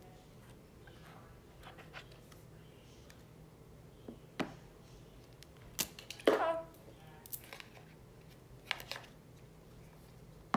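Handling a new iPhone 11 and its cardboard box on a table: scattered taps, clicks and rubbing, the loudest a little after six seconds in, with a few more near the end.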